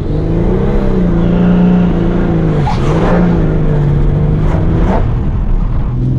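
BMW M57D30 3.0-litre straight-six diesel, fitted with a big GTB30V turbocharger, pulling hard under acceleration: the engine note climbs, dips and recovers at a gear change partway through, with brief rushes of noise, then drops to a lower steady note near the end.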